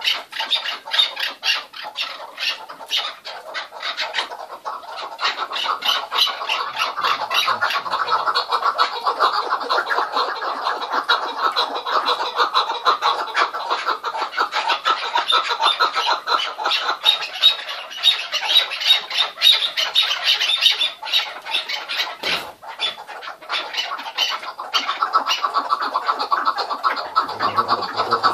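Chukar partridges calling without a pause, a rapid run of repeated chuck notes, with a brief break about two-thirds of the way through.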